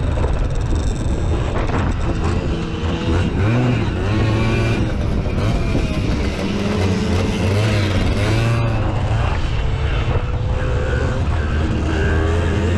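Simson moped's 50 cc two-stroke single-cylinder engine running hard on board during racing laps, its pitch rising and falling repeatedly as the throttle opens and closes.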